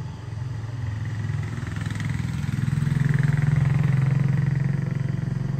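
A motor vehicle's engine passing unseen, growing louder to a peak about three to four seconds in and then fading.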